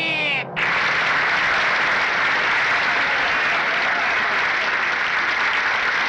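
A herald's loud shout ends about half a second in, and a crowd of courtiers breaks into steady applause that keeps going.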